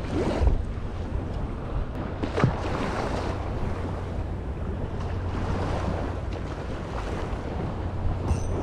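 Wind buffeting the microphone over waves washing against the shore, a steady low rumble. A short whoosh just after the start as the light rod is cast, and a single sharp click about two and a half seconds in.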